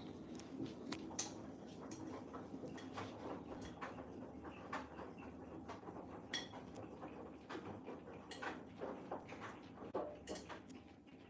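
Irregular light clicks and taps from a cat batting a plastic suction-cup windmill toy on a steel fridge door, setting it spinning, over a steady low hum.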